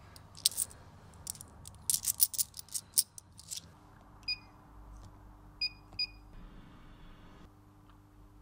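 Vending machine touchscreen beeping as a selection is keyed in: one short two-tone beep about four seconds in, then two quick beeps about a second later. Before the beeps comes a run of sharp clicks and rattles, and a low steady hum sits under the beeps.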